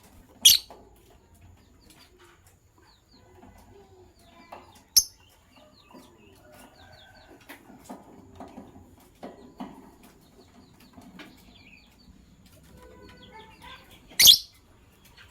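Lovebirds chirping and chattering softly, broken by three loud, shrill shrieks: about half a second in, around five seconds in, and near the end.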